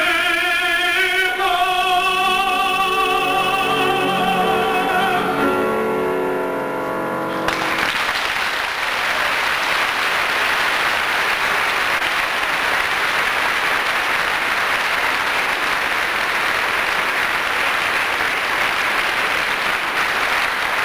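A male operatic voice holds the song's last note with a wide vibrato over piano accompaniment, cutting off about seven and a half seconds in. A concert audience then breaks into steady applause.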